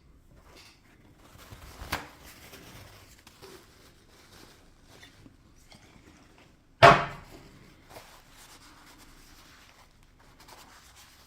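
Faint rubbing and handling of small parts as the inside of a lens zoom ring is wiped clean, with a sharp click about two seconds in and a single loud knock about seven seconds in.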